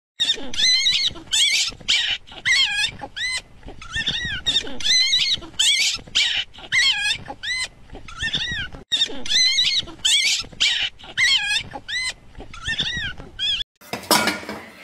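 Young puppy squealing and whining over and over, about two high, arching cries a second, as it struggles to climb onto a couch. The cries stop abruptly near the end.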